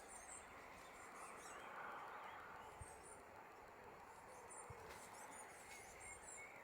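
Faint outdoor quiet with small birds chirping now and then: short, high twitters scattered through, over a soft background hiss.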